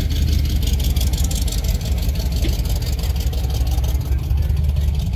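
A 12-valve Cummins diesel engine idling, with a steady low rumble and a fast, even clatter.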